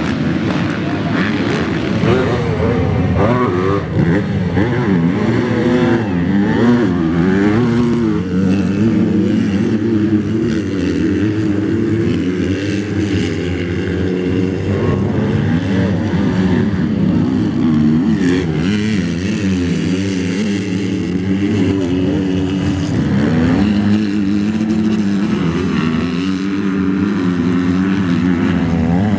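Motocross bikes racing, several engines overlapping and revving up and down again and again.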